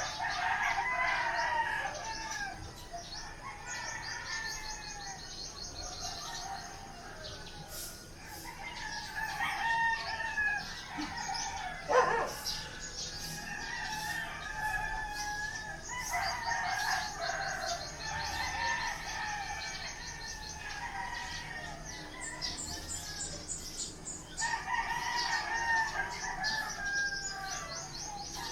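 Roosters crowing in turn, with long crows about every eight seconds (at the start, around 9 s, 16 s and 25 s in). A fast, high-pitched pulsed chirping runs under the crows at times, and a single sharp sound about twelve seconds in is the loudest moment.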